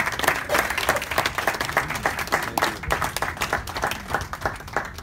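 A small crowd of people applauding, many hands clapping together; the clapping stops near the end.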